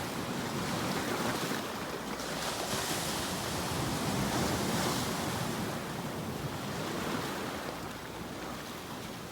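Sea waves washing onto a shore in a continuous hiss, swelling and easing every couple of seconds, a little quieter near the end.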